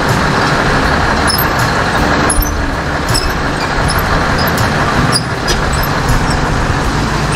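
Scania R580 truck's V8 diesel engine running steadily at low speed, heard from the cab, with continuous road and traffic noise.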